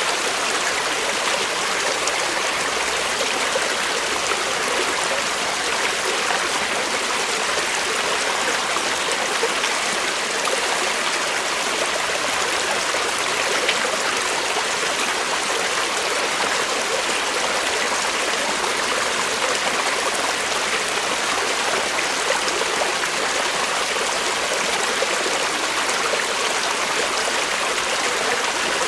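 Creek water flowing and babbling over stones, a steady rushing with no breaks.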